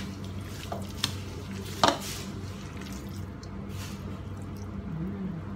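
Hands squishing and kneading a wet ground-beef and soaked-bread mixture in a plastic bowl: short wet squelches with a few light knocks against the bowl. A steady low hum runs underneath.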